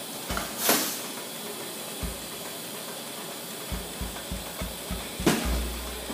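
TIG welding arc on stainless steel hissing steadily, with a sharp crackle about a second in and another near the end.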